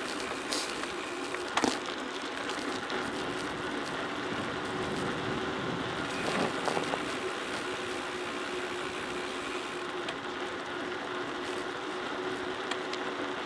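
Tyres rolling down an unpaved forest road: steady crunching and rattling surface noise with a faint steady hum, broken by a sharp knock about a second and a half in and another bump around six and a half seconds.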